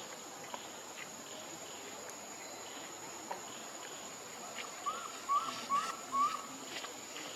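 Four short squeaky calls from a baby monkey, each rising then held briefly, come in quick succession a little past the middle, over a steady high buzz of insects.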